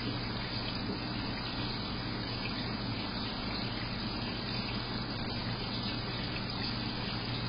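Reef aquarium's water circulation: a steady rush of moving water over a low, even pump hum.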